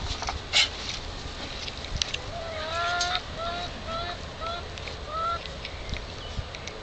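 A husky vocalising in a series of short whining calls: one longer call, then about four short ones, starting about two seconds in. A few sharp knocks come in the first second.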